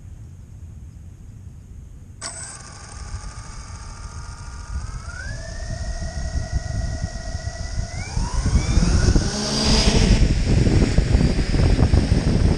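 The six brushless motors and propellers of a 900 mm Y6 multirotor drone start spinning about two seconds in: a whine of several tones that steps up in pitch twice. Near the end the whine rises as the throttle comes up and the drone lifts off into a hover, with a loud rushing of prop wash.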